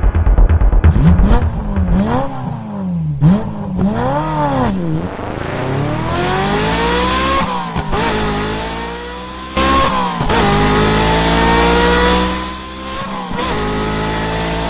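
Car engine revved in several quick blips, then accelerating hard through the gears, its pitch climbing steadily and dropping sharply at each of about three gear changes.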